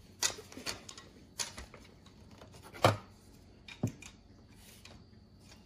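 Scattered light clicks and knocks of small objects being handled on a tabletop, the loudest about three seconds in.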